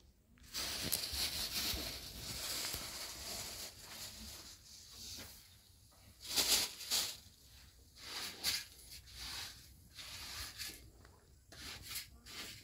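Scraping and rubbing strokes of a hand tool over a rough surface, irregular and uneven: one long stroke first, then shorter separate ones.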